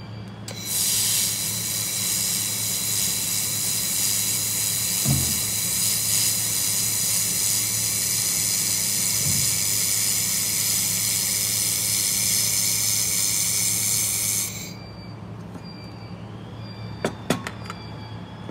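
Handheld 1000 W fiber laser welding gun running a fillet weld on 2.8 mm stainless steel: a loud, steady hiss with a high whine, starting just after the beginning and cutting off sharply after about fourteen seconds. A low steady hum runs underneath, and a few sharp clicks come near the end.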